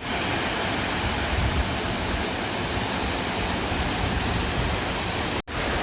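Waterfall: a steady, even rush of falling water, with a brief dropout near the end.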